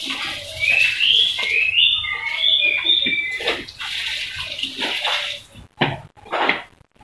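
Water pouring into a plastic container, likely a watering can being filled from a bucket, with many short bird chirps over it. The pouring stops about five seconds in, and a few short splashes or knocks follow.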